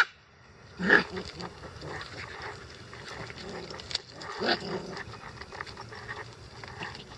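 Icelandic Sheepdog puppies at play: a short bark about a second in and another about four and a half seconds in, with low scuffling noise between.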